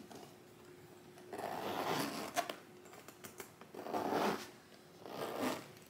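Metal zipper around the lid of a Louis Vuitton Nice BB vanity case being pulled shut in three rasping strokes, each about a second or less.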